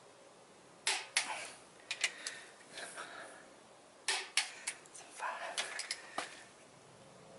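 Torque wrench tightening ARP main-stud nuts on a 6.7 Cummins engine block to 75 ft-lb: a series of sharp metallic clicks as the wrench reaches its setting and is ratcheted back, with light scraping of the socket on the nuts in between.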